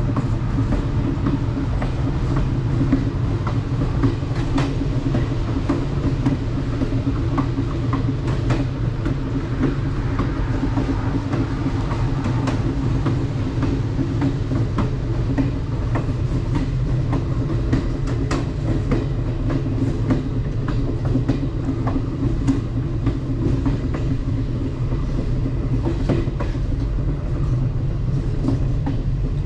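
Alaska Railroad passenger train rolling along the track, heard from on board at the rear: a steady low rumble with scattered sharp clicks from the wheels on the rails.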